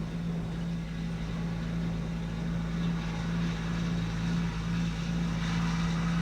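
Engine of a harvest-time farm machine running at a steady speed, an unbroken low drone.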